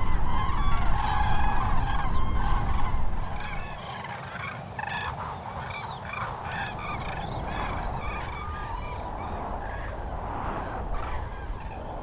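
A large flock of birds calling, many short calls overlapping. A low rumble sits under the first few seconds and drops away about three and a half seconds in.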